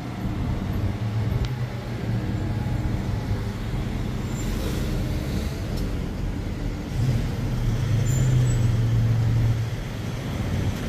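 Street traffic: car engines running close by, a steady low drone that swells about a second in and again from about seven to nine and a half seconds in.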